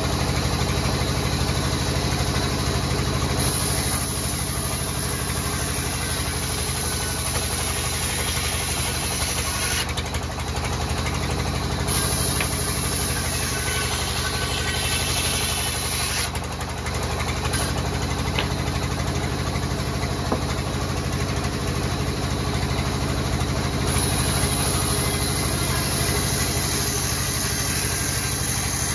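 Large belt-driven band saw running steadily and sawing lengthwise through a thick slab of timber, a continuous deep mechanical drone with the blade's hiss over it.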